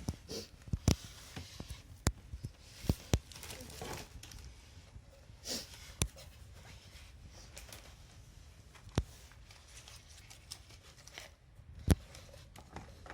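Plastic figure parts and packaging being handled: scattered sharp clicks and knocks, with a couple of brief rustles.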